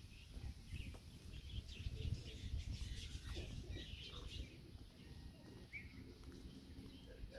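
Faint, scattered bird chirps over a steady low rumble.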